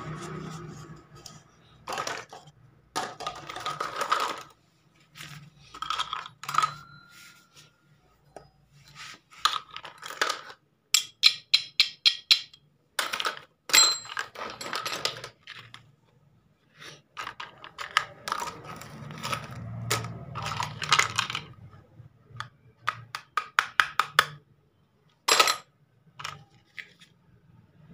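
Miniature plastic toy kitchenware clattering and clicking as pieces are picked up, knocked together and set down, in scattered irregular knocks with a quick run of sharp clicks partway through.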